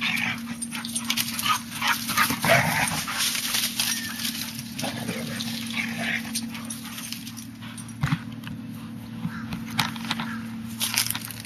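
Two dogs play-fighting, giving short yips and whines amid scuffling and knocks, with a steady low hum under it all.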